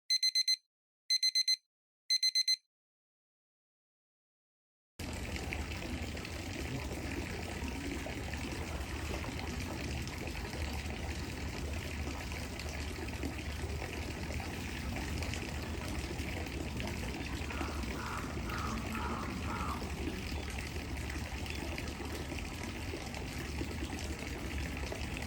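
Three short electronic beeps, then a few seconds of silence, then steady trickling water over a low hum.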